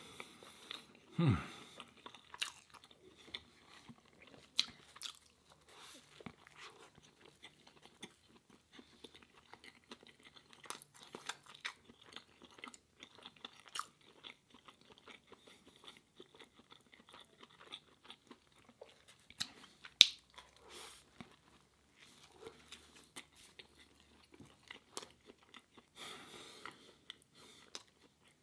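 Close-miked chewing and biting of a ciabatta breakfast sandwich, with moist clicks and crunches throughout. One sharper, louder click comes about twenty seconds in.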